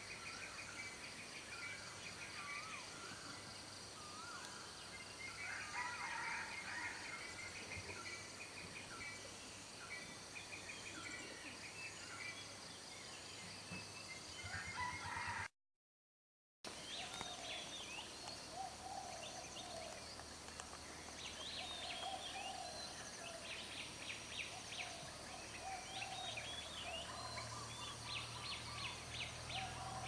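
Dawn chorus of many birds singing and calling at once: quick repeated high notes and whistled phrases, joined in the second half by lower wavering calls. The sound cuts to silence for about a second midway.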